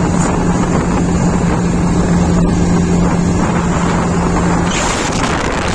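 Motorcycle engine running at a steady pitch while riding, with wind buffeting the microphone. Near the end the engine tone drops away and the wind rush grows louder.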